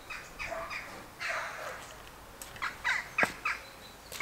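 Birds calling in short, scattered chirps, with a sharp knock about three seconds in.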